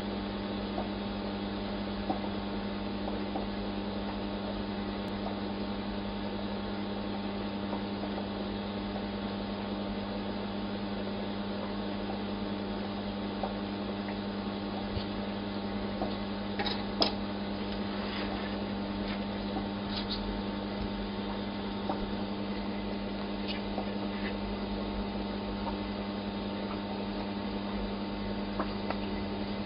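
Steady electrical hum, with a couple of short clicks a little past halfway.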